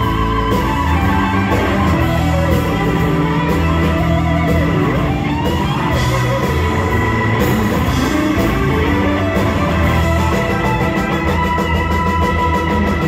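Live blues-rock band playing loudly: an electric lead guitar with bending notes over drums and bass guitar.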